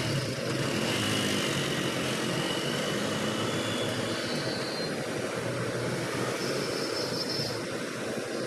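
Steady street noise with a vehicle engine humming low in the first few seconds, mixed with the sizzle of a large flat griddle on which aloo tikkis and their topping are cooking.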